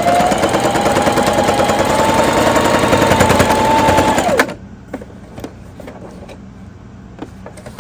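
Sewing machine running fast, its needle stitching with a rapid, even ticking over a motor whine that rises as it speeds up. It stops sharply about four and a half seconds in, followed by a few light clicks.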